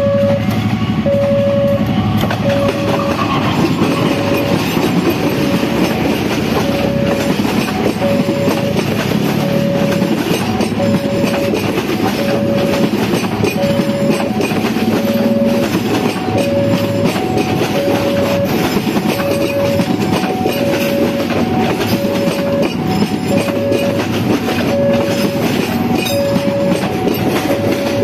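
KAI CC 203 diesel-electric locomotive running past, followed by its passenger coaches rolling by close, wheels clattering over the rails. A level-crossing warning alarm beeps steadily about once a second throughout.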